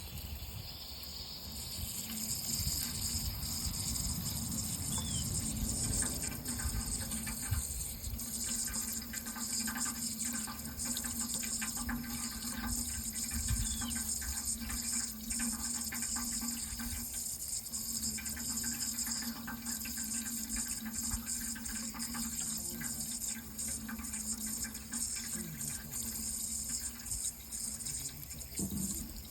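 Water running steadily: a continuous even hiss with a low rumble and a faint steady hum underneath.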